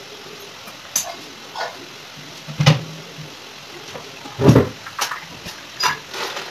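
Thick egg gravy simmering in a nonstick pan, with a low steady hiss and irregular pops as bubbles burst through the sauce. The loudest is a dull thud about halfway through.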